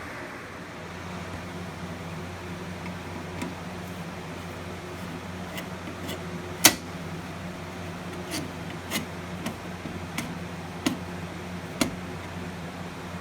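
A steady low hum with about ten irregular clicks and knocks scattered through it, the sharpest about six and a half seconds in. No alarm horn is sounding.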